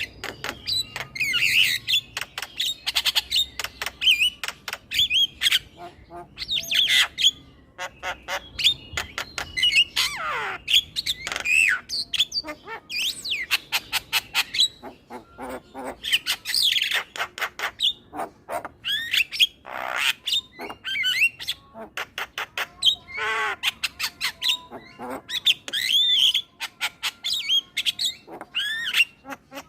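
Male Javan myna singing a long, varied chattering song: quick runs of clicks, harsh squawks and whistled notes, some sliding steeply down in pitch.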